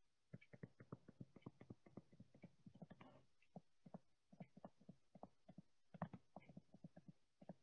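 Faint rapid tapping of a stylus on a tablet screen, about five taps a second with a short pause about three seconds in, as a dashed line is drawn stroke by stroke and then a label is handwritten.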